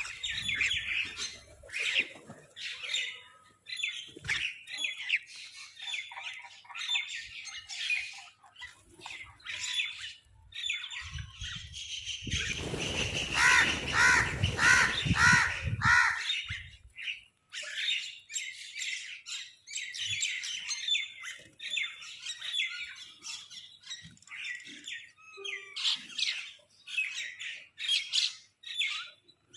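Crows squawking and calling over food in many short, harsh calls, one after another. About twelve seconds in, a louder run of repeated calls with a low rumble under it lasts about four seconds.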